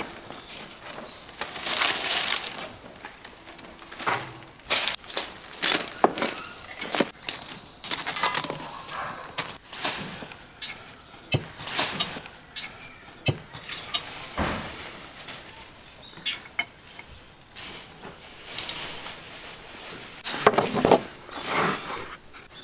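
Metal kebab skewers clinking and knocking against each other and the grill as meat is handled, many short sharp clicks scattered through, with occasional longer rustling and clattering.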